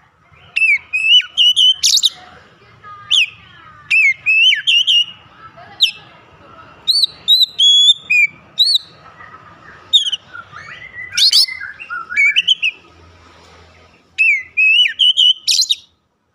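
Oriental magpie-robin singing loud, varied phrases of clear whistles and sharp upswept notes, with short pauses between phrases. The song stops suddenly near the end.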